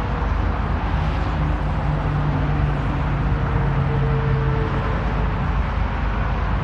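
Steady outdoor noise with a low electric hum rising in for a few seconds and fading out, as the vending machine's robotic pallet carries the car along its tracks.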